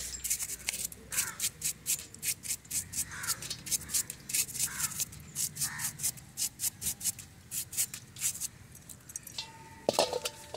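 A toothbrush scrubbing a Kinetic Honda scooter's carburetor in a metal pan of petrol: quick scratchy bristle strokes, about four a second, as it is cleaned. A sharper metallic clink comes near the end.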